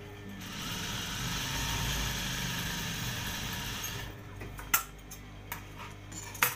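Juki industrial sewing machine running and stitching a seam for about three and a half seconds, over a steady low hum. After it stops, a few sharp clicks, the loudest two about a second apart near the end.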